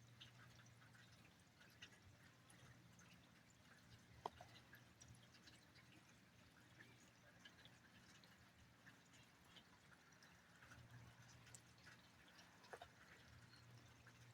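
Near silence: faint, scattered ticks of raindrops over a low steady hum, with a slightly louder single drip about four seconds in.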